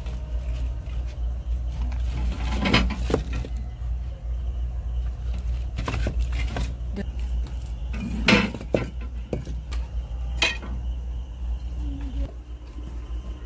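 Loose bricks and stones clinking and knocking against one another as they are shifted by hand, a handful of sharp knocks over a steady low hum.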